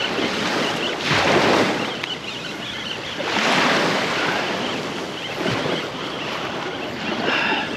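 Small surf breaking and washing up a sandy beach, the noise swelling three times as waves come in, with wind buffeting the microphone.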